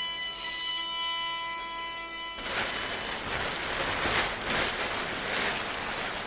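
Five-axis CNC mill with its spindle whining at a steady pitch; about two and a half seconds in, the whine gives way to a loud hissing rush of the cutter working wood, swelling and easing several times.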